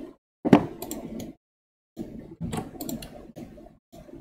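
Computer keyboard keys and mouse buttons clicking in quick clusters, with a louder knock about half a second in. The clusters are cut off between bursts by a microphone noise gate.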